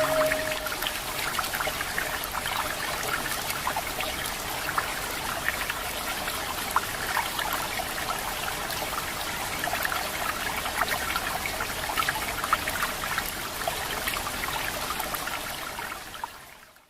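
Waterfall: water splashing and pouring steadily, with many small splashes over a constant rush, fading out near the end.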